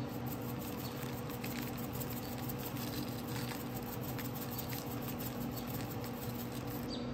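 Tajín seasoning shaken from its shaker bottle: a light, irregular patter of small clicks as the granules fall onto a block of cream cheese and parchment paper, over a steady low hum.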